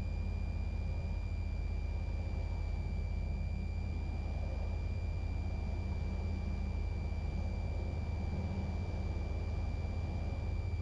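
Cessna 172 Skyhawk engine and propeller droning steadily in the cockpit on final approach, with a steady high-pitched whine running over the drone the whole time.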